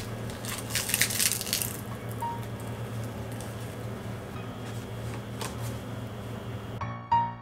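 Biting into and chewing a seaweed-wrapped rice ball (onigiri), the crisp nori crackling for about a second, over a steady low hum. Piano music comes in near the end.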